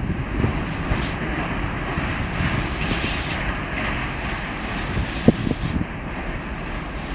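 Freight train wagons rolling away on the rails: a steady rumble of wheels on track that slowly fades, with one sharp clank a little past five seconds in.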